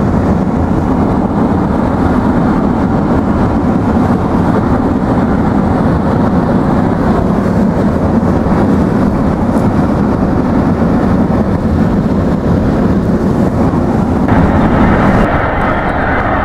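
Steady road and wind noise of a car driving at speed, heard from inside the cabin. The sound changes abruptly near the end.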